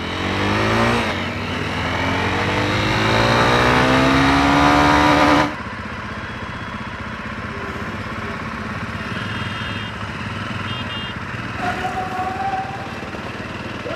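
Motorcycle engine accelerating hard, its pitch rising steadily with a shift about a second in, then cut off suddenly about five and a half seconds in. After that, a quieter, steady mix of engine and street traffic noise.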